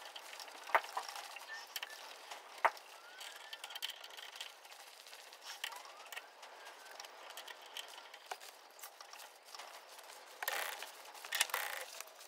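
Steel chuck key working the jaws of a large four-jaw lathe chuck: a few sharp metallic clicks spaced seconds apart, then a short spell of clattering near the end.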